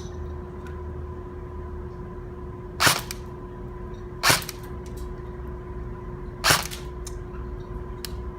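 Airsoft gun fired three single shots, each a sharp crack a second or two apart, with a few fainter ticks between them. A steady hum runs underneath.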